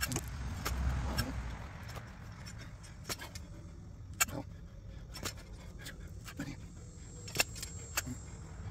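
Scattered sharp metal clicks and knocks from a long-handled steel lawn plugger being driven into turf and soil and worked to lift out cores, over a low steady rumble.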